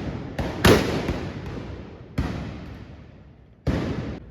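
Trabucs (Catalan blunderbusses) fired with blank gunpowder charges during a salvo: four loud blasts, two close together within the first second, one about two seconds in and one near the end. Each blast echoes away over a second or more.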